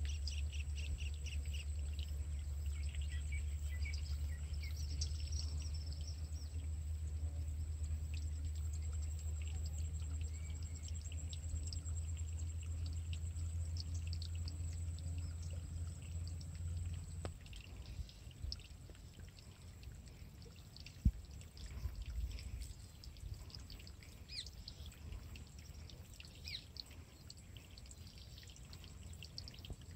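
Outdoor ambience: a low rumble of wind on the microphone for about the first seventeen seconds, then dropping away, under faint bird chirps and a steady high-pitched whine.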